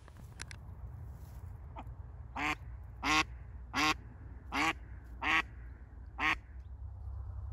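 Live decoy hen duck (domestic mallard) calling: a series of six loud quacks, about one every 0.7 s, starting about two seconds in. This is the hen's calling meant to draw a drake in. A steady low rumble runs underneath.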